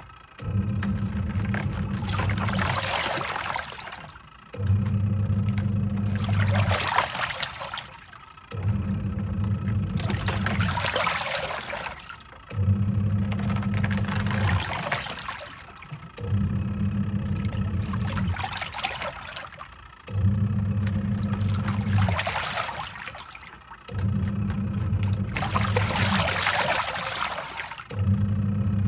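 Twin-tub washing machine in its wash cycle. The pulsator motor hums for about three seconds, stops for about a second, then starts again, in a steady rhythm about every four seconds. Water sloshes and churns with each run.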